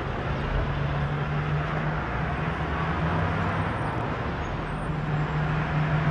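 Steady road traffic noise with a low engine drone.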